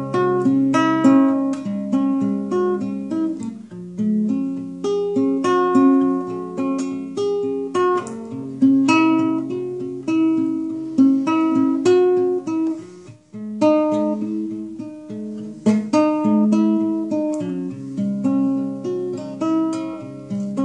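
Solo classical guitar playing an instrumental break of a song: plucked melody notes over bass notes and chords, with a short pause about two-thirds of the way in.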